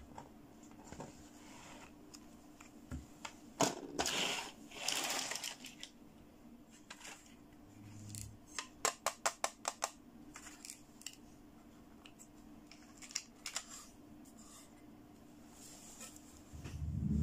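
Hands handling hard plastic toys: scattered light knocks and clicks, a couple of brief rustling scrapes, and a quick run of sharp plastic clicks lasting about a second as a lollipop-shaped toy makeup palette is handled. Low music comes in near the end.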